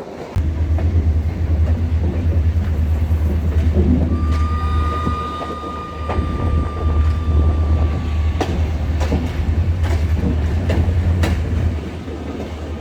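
Moving passenger train: a heavy low rumble with sharp clicks of the wheels passing over rail joints. From about 4 s to 8.5 s a single high steady tone rings over it, then stops.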